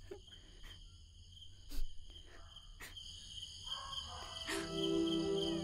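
Crickets chirping steadily at night, with occasional soft clicks. A held low musical drone comes in about four and a half seconds in and is the loudest sound.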